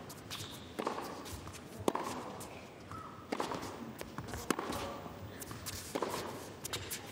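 Tennis ball struck back and forth by rackets in a baseline rally: a series of sharp pocks about every second and a half, with the faint murmur of the arena behind.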